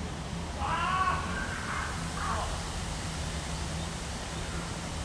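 A crow caws twice, a longer arching call about half a second in and a short falling one just after, over a steady rush of wind noise.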